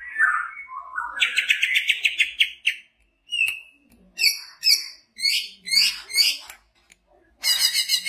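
Male greater green leafbird (cucak hijau) singing loudly. It gives a varied song: a rising note, then a fast trill, a sharp single note, and a run of short falling phrases, with a short pause before a last burst near the end.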